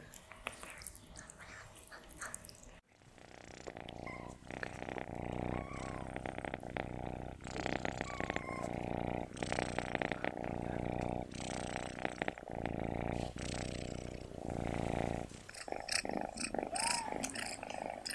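Domestic cat purring close to the microphone in repeating pulses, one per breath, starting about three seconds in. Sharp chewing clicks come before the purring, and clicks return near the end.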